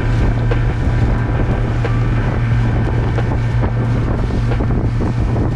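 A small open boat's motor running steadily at speed, a constant low drone, while the hull slaps and splashes through the chop. Wind buffets the microphone throughout.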